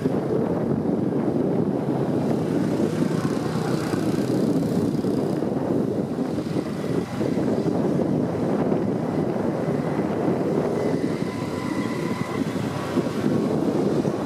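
Moped being ridden along a road: steady engine and road noise mixed with wind rushing over the microphone.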